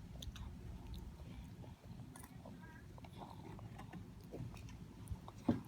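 Baby chewing food, with faint scattered smacking and clicking mouth sounds over a low hum and one short louder sound near the end.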